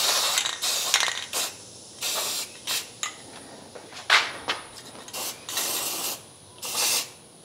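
Aerosol can of self-etching primer spraying in bursts: a longer hiss at the start, then several short sprays over fresh welds.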